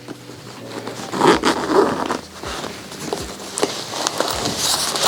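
Zipper on a soft drone shoulder bag being drawn open in several rasping pulls.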